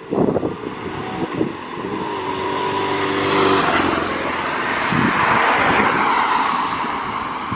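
BMW R1100RT boxer-twin motorcycle under way, its engine running beneath a rush of wind that swells about halfway through and eases near the end.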